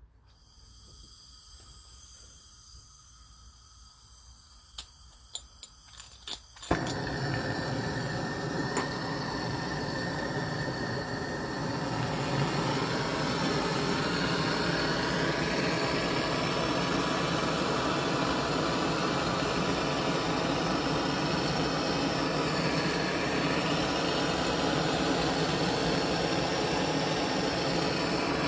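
Several sharp clicks, then a handheld gas torch lights about seven seconds in and burns with a steady hiss that grows a little louder a few seconds later.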